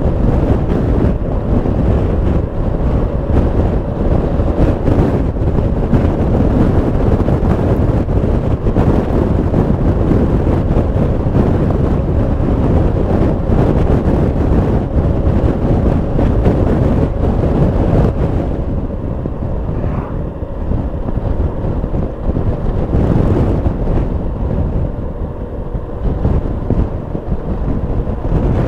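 Wind rushing over the microphone on a moving Yamaha XMAX 300 scooter, with the scooter's single-cylinder engine running steadily underneath. The wind noise eases a little about two-thirds of the way through.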